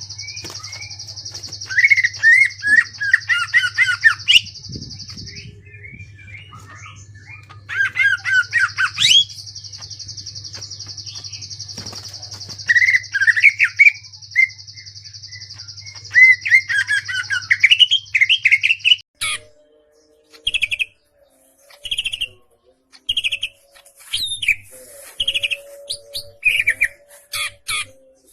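Green leafbird (cucak ijo) singing in bursts of rapid, harsh chirping phrases, with a steady high buzz and low hum behind it. About two-thirds of the way through the buzz and hum stop, and the bird switches to single short notes about once a second.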